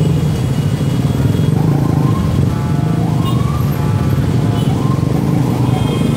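Heavy street traffic: motorcycle and car engines running close by, with a vehicle horn honking briefly about two and a half seconds in and again at the end, and a siren rising in pitch over and over behind it.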